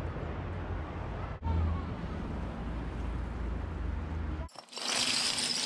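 Low, steady city street traffic rumble. About four and a half seconds in it cuts off, and a heap of metal bottle caps clatters out onto paper for about a second and a half.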